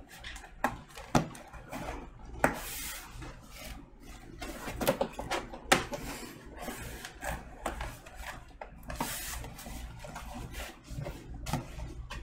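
Hands handling a large cardboard box: fingers rubbing and scraping along the cardboard, with scattered taps and knocks and a couple of longer sliding scrapes, as the lid is pried at without opening.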